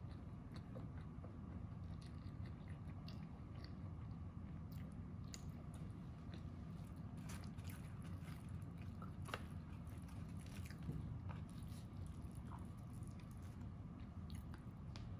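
Close-miked chewing with soft, wet mouth squishes and scattered small clicks and ticks, over a steady low hum.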